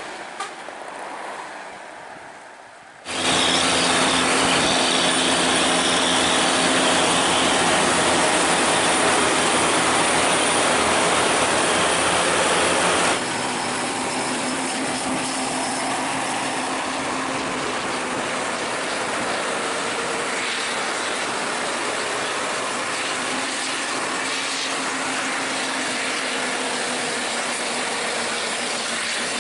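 Vehicles driving fast on a highway: a steady engine drone mixed with tyre and wind noise, heard from a moving vehicle close behind buses. It is quieter traffic sound at first, turns suddenly much louder about three seconds in, and eases a little about ten seconds later.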